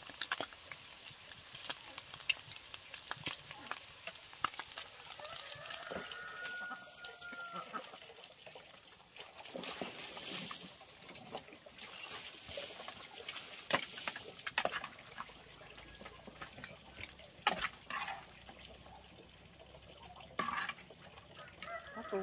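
Pork belly and quail eggs sizzling in a metal frying pan over a wood fire, with chopsticks and a spoon knocking and scraping against the pan. A drawn-out animal call about six seconds in.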